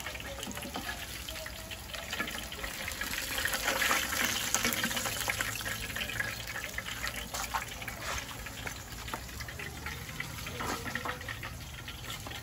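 Water running, as from a kitchen tap, with a few light knocks; it is loudest about three to five seconds in.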